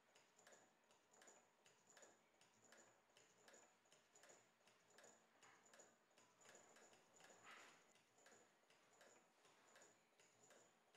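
Homemade one-stroke solenoid engine running, its plunger clicking faintly in a steady rhythm of about two to three ticks a second.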